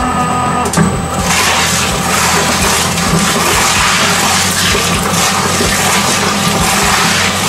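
Industrial twin-shaft shredder running, its cutter discs grinding and tearing up a whole red cabbage. The noise is dense and steady over a low motor hum, and grows fuller about a second in.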